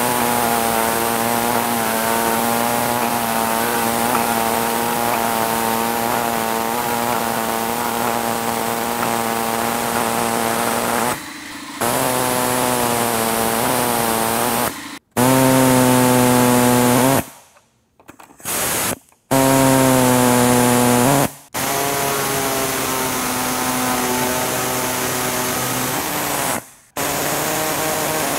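Handheld electric power cutting tool whining as its blade cuts through the plastic mesh of a truck grille, the pitch wavering a little under load. About halfway through it stops and restarts several times in quick succession.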